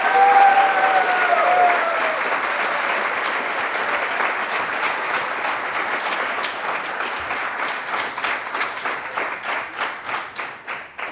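A large seated audience applauding. The applause is dense at first, then thins into separate claps near the end as it dies away.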